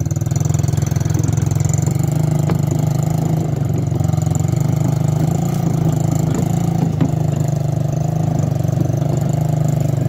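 125cc ATV engine running steadily at an even pitch.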